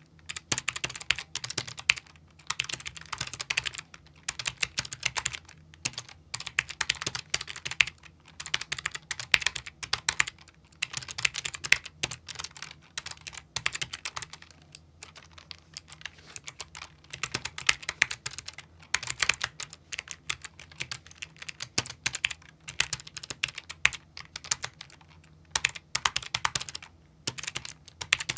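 Typing on a mechanical gaming keyboard: rapid runs of keystrokes in bursts of a second or two, broken by short pauses.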